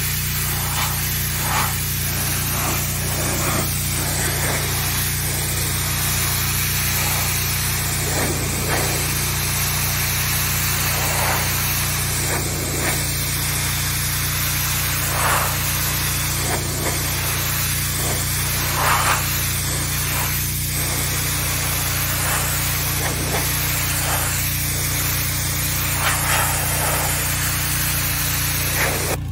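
Pressure washer running with a steady low drone while its high-pressure water jet hisses against flagstone, stripping off the grime.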